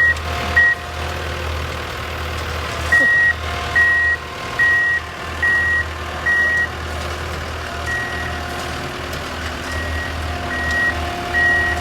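Vehicle reversing alarm beeping in a steady high tone, about one beep a second with a pause near the start, over a steady low engine rumble.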